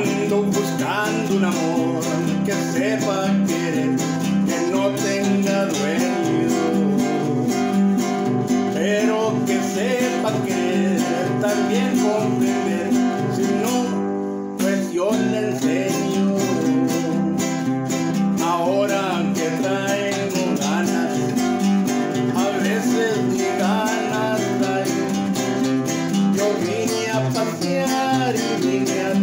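Two nylon-string classical guitars strumming chords while a man sings a Spanish-language ranchera over them. The music dips briefly about halfway through, then carries on.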